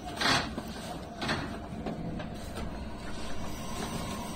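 Running noise of an electric local train heard from just behind the driver's cab: a steady low rumble, with two short sharp bursts of noise in the first second and a half and fainter ones after.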